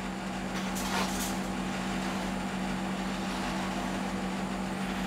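A steady low mechanical hum with a few fixed tones, as from a motor or fan, holding an even level. A short faint hiss comes about a second in.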